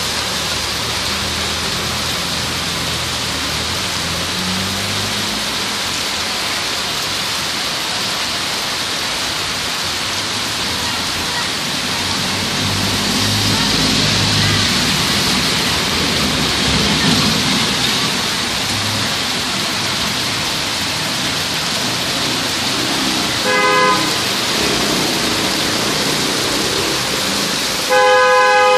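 Heavy rain pouring onto a wet street, a steady hiss. A car drives through the water about halfway, swelling the noise for a few seconds. A vehicle horn toots briefly near the end, then honks longer and louder at the very end.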